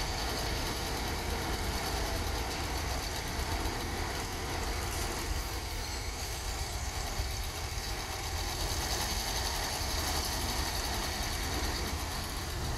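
Diesel engines of Hyundai dump trucks running steadily while the trucks tip dirt from their raised beds.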